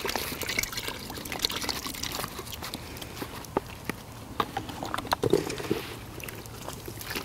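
Milk pouring from a carton into a plastic bait tub of sand and groundbait mix, a steady trickle with small scattered clicks.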